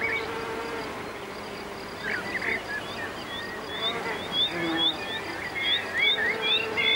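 Honeybee buzzing as it works a broom flower, over a run of short, high, rising chirps repeating about twice a second through the second half.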